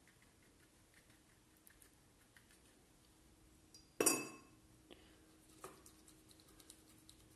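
A paintbrush knocking against a glass water jar, a single sharp ringing clink about four seconds in, followed by two softer taps about a second and a second and a half later. Before it, only faint soft ticks.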